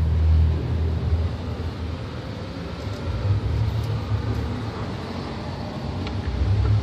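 A steady low rumble, with a couple of faint clicks from small metal parts being handled on a transmission valve body.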